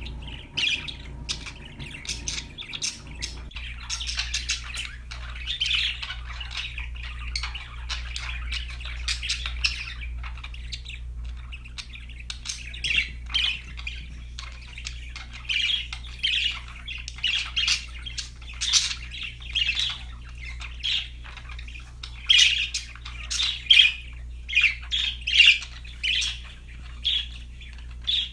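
Pet budgerigars chirping and chattering in a stream of short, quick high calls. The calls get busier and louder in the second half.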